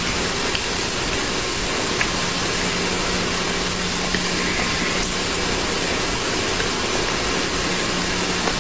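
Steady recording hiss with a low hum underneath, and a few faint taps.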